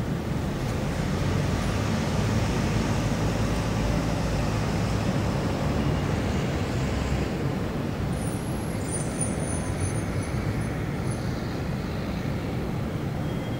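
City road traffic: a steady low rumble of passing cars and buses, swelling a little in the first few seconds.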